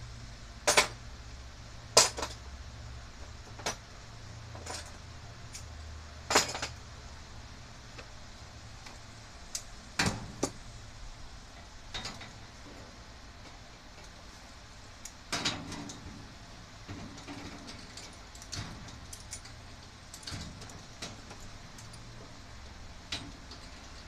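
Irregular sharp metal clinks and knocks, a dozen or so, a few of them loud, from garage door spring hardware (the spring hook and track bracket) being handled and fitted by hand.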